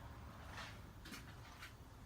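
Near silence: faint room tone with a low hum and a few soft, brief rustles.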